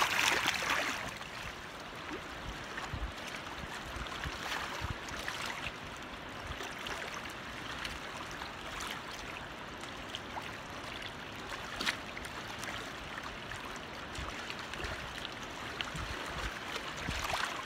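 A small smallmouth bass splashes into the water as it is dropped back in, then a steady rush of river water at the shoreline.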